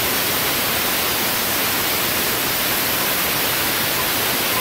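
Compressed-air blow gun giving a loud, steady hiss that starts suddenly, blasting air into the bore of a Hyundai hydraulic clutch slave cylinder to blow out remaining dust and dirt after cleaning.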